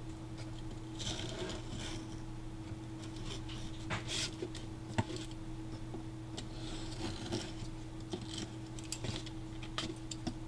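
Pen-style craft knife drawn along the edge of a box, slicing through cardstock in several passes to trim off a strip: faint, irregular scratchy strokes with a few light clicks.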